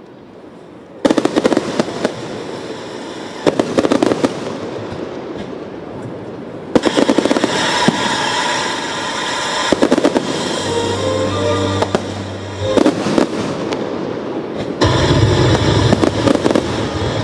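Aerial fireworks display: shells bursting in quick clusters of bangs and crackles every few seconds, turning into a dense, continuous barrage near the end.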